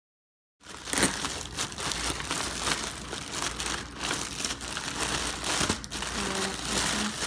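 Plastic bag crinkling and rustling as it is handled and pulled open, a continuous run of crackly rustles that starts about half a second in after a moment of total silence.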